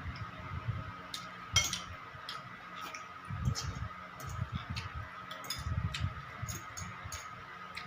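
Close-up eating sounds: irregular chewing with scattered small sharp clicks and mouth smacks.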